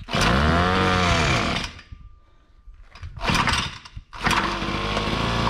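Small engine of a KOSHIN EP-10P engine-powered sprayer being restarted with difficulty. It fires and revs up briefly, then dies, sputters again about three seconds in, and catches about four seconds in, running steadily.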